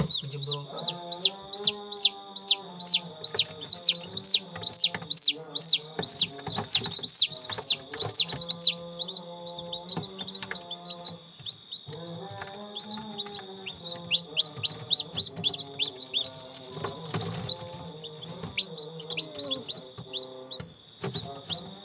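Newly hatched chicks peeping in an egg incubator: loud, high, rapid calls at about two to three a second, in a long run and then a shorter one after a pause. Lower pitched tones, possibly music, and a steady high tone run underneath.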